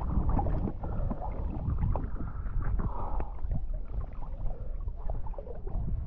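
Choppy sea water sloshing and lapping against a half-submerged action camera, with irregular small splashes and knocks.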